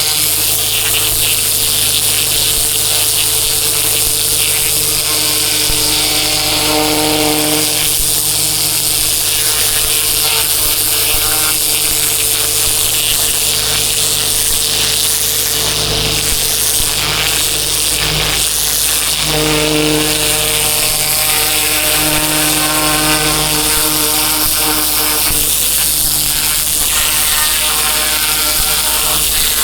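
Pressure washer's engine running steadily, with the hiss of its high-pressure water spray.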